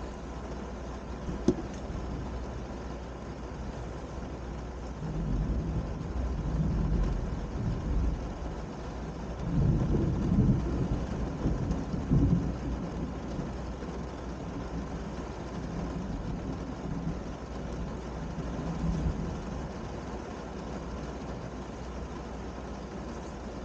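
Thunder rolling in several low waves over steady rain. It builds about five seconds in, is loudest around the middle, and swells once more before fading. A single sharp tap sounds about a second and a half in.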